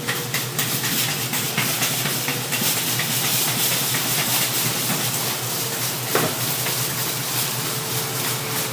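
Grocery store parking lot ambience taken over by a steady, loud hiss with many small rapid clicks and rattles running through it. The hiss starts suddenly, and a sharper click comes about six seconds in.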